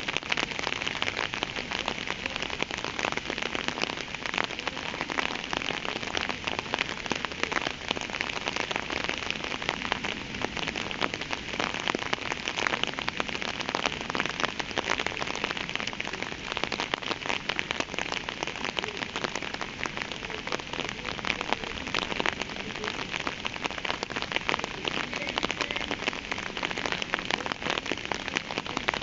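Rain falling steadily, a dense patter of countless drops.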